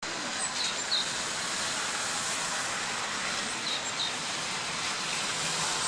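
Steady outdoor hiss of distant city traffic. A small bird gives a pair of short, high chirps twice.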